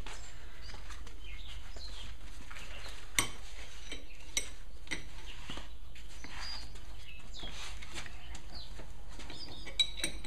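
Sharp metal clinks from a steel ball joint press and hand tools being handled while the press is set up on a drive shaft's universal joint. There are a few isolated clinks, the loudest about three seconds in and two close together near the end, over a steady low hum.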